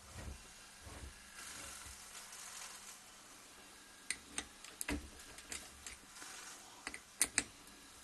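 Sharp metallic clicks and taps as a hand works the jaws of a homemade glass lathe's chuck. About eight separate clicks come in the second half, with the loudest two close together near the end, after a faint rustle.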